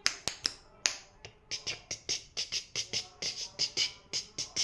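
A steady beat of sharp clicks. A few scattered ones come first, then from about a second and a half in they run evenly at about four or five a second: a rhythm clicked out for a pet parrot to dance to.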